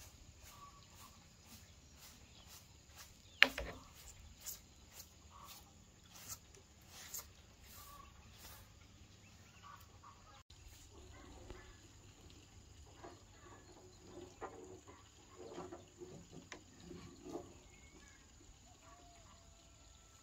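Quiet rural background with faint chicken clucking in short calls during the second half, and a single sharp knock about three seconds in.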